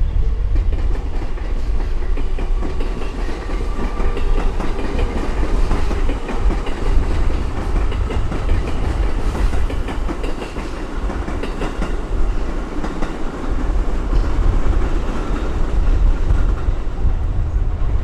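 Train running past, with a steady heavy rumble and wheels clicking over the rail joints.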